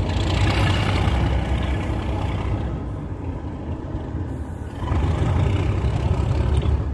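Class 37 diesel locomotive's English Electric V12 engine running loud and rough, easing off briefly and then building up again; a roaring sound.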